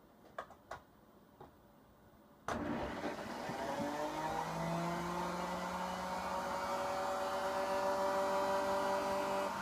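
A few faint clicks, then about two and a half seconds in the router spindle of an Ooznest OX CNC switches on with a sudden start. It spins up in a rising whine over the next two seconds and settles into steady running.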